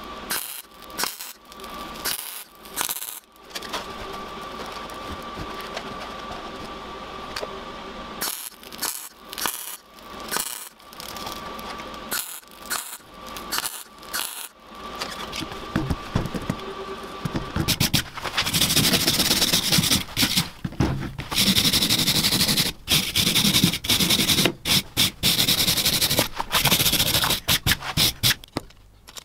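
MIG welding arc on a steel bike chain: short crackling bursts of tack welds, then longer runs of steady crackling sizzle. For the last ten or so seconds a louder, harsher steady noise takes over, broken by brief stops.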